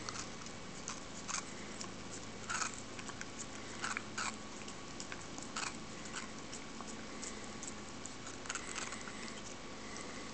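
Rat terrier licking and biting at a frozen watermelon puree popsicle on a stick: irregular short wet smacks and crunchy bites.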